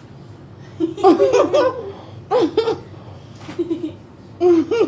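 A woman laughing in about four short bursts.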